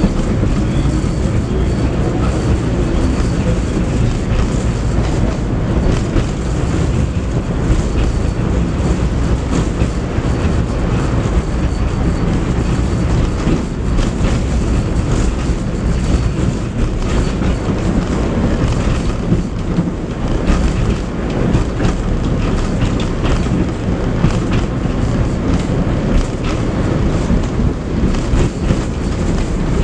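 Tram running along street track, heard from on board: a steady low rumble of steel wheels on the rails with frequent clicks and knocks from the track.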